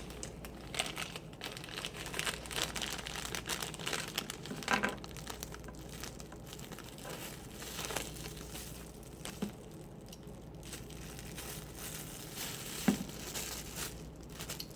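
Plastic doll packaging being crinkled and torn open by hand, an irregular run of crackling rustles with a few sharper clicks.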